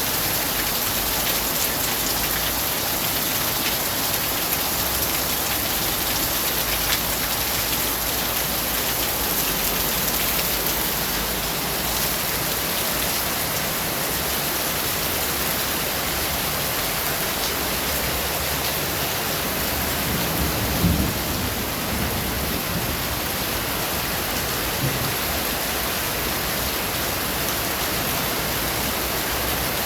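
Steady, heavy rain falling on a surface as an even hiss, with a brief low thump about two-thirds of the way through.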